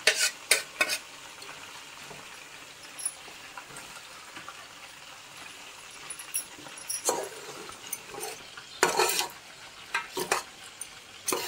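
Metal spoon knocking and scraping against a steel bowl and an aluminium pot as marinated chicken is tipped in and stirred into frying masala, over a low steady sizzle. A few sharp clanks come in the first second, then a quieter stretch, then a run of clanks and scrapes in the second half.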